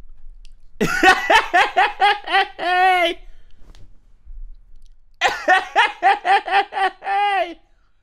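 A man laughing heartily in two bursts, about a second in and again about five seconds in. Each burst is a quick run of 'ha-ha' pulses that ends in one longer drawn-out syllable.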